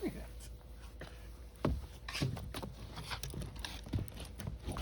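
Two Cavalier King Charles spaniels tussling over a toy: scuffling and clicks, with several short, low, falling vocal sounds.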